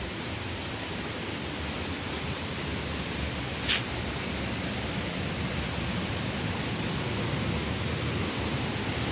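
Steady rush of falling water, an even hiss with no break, with one brief click a little under four seconds in.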